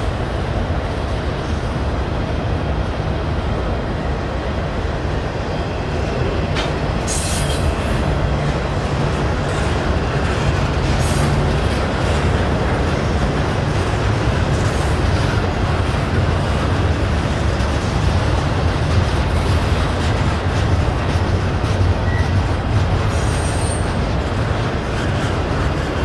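Double-stack intermodal train's loaded well cars rolling past: a steady rumble of steel wheels on the rails, with a brief high-pitched wheel squeal near the end.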